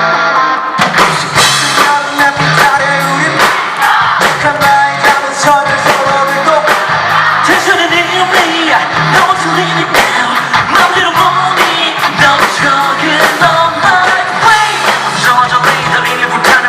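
Live rock band performance: the full band with drums and electric guitars comes in about a second in, with a male lead vocal singing over it.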